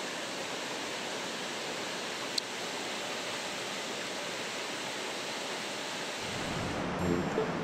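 Mountain stream water rushing steadily, with a single sharp click about two and a half seconds in. Music starts near the end.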